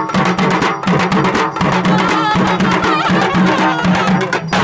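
Live festival drum ensemble playing fast and dense, many strokes a second, with a wavering pitched line heard over the drums partway through.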